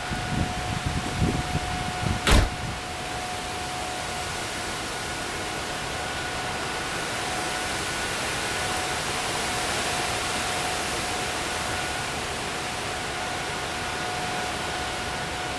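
Steady storm noise of wind and rain, with a tornado warning siren holding one steady tone underneath. A few low thumps come in the first second or so, and a single sharp knock about two seconds in.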